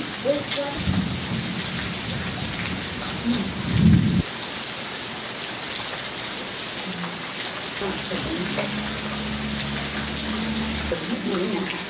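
Heavy rain falling steadily in a thunderstorm, with a low thunder rumble starting about a second in and building to a loud clap near four seconds. Later a low, steady hum runs for about three seconds.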